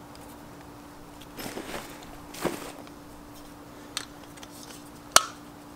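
Rustling and light clicks from camping stove parts and a small gas canister being handled and pulled out of a backpack, with one sharp click about five seconds in, over a faint steady hum.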